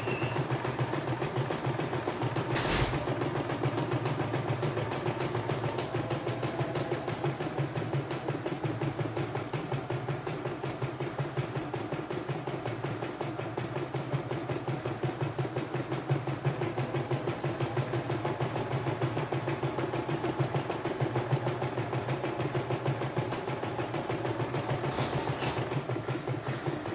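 CNY E960 portable embroidery machine running an embroidery design, its needle stitching at a steady fast rate, with one sharp click about three seconds in.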